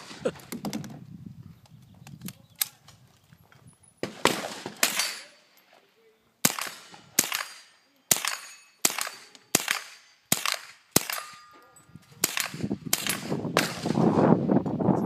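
Rapid string of .22 rimfire shots from an AR-15 with a .22 conversion bolt, roughly one every three-quarters of a second, each followed by the ring of the steel target being hit. A loud rushing noise builds under the last few shots.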